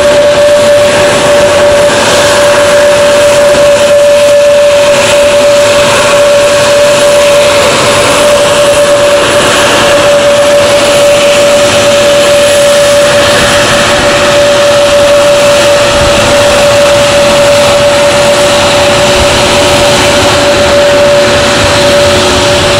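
Airbus A321neo's Pratt & Whitney PW1100G geared turbofan engines running at taxi power, a loud steady jet noise with a constant whine.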